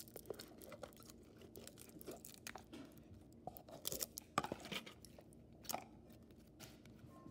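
Clear slime with blue pom-poms, sliding out of its tub onto a countertop and pressed by hand: soft, irregular sticky clicks and squelches, the sharpest about four seconds in.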